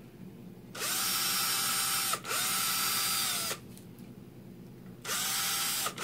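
Ryobi cordless drill running in short bursts as the next-size bit opens up pre-drilled 3/32-inch holes in a woven basket's side, its motor whine rising as it spins up and falling as it stops. It runs for about three seconds with a brief break, stops, and starts again about five seconds in.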